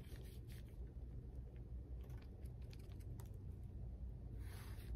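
Faint scattered small clicks and scratches of a thin liner paintbrush tapping and stroking acrylic paint on paper laid over a plate, with a short rustle of the paper near the end.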